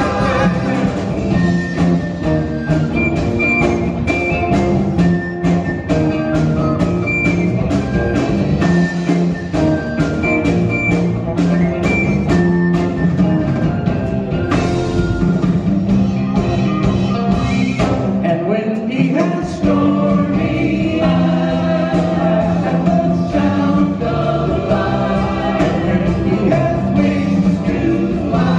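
Live 1960s sunshine-pop band playing an upbeat song through a PA, with electric guitars, bass, keyboards and a drum kit under group vocal harmonies.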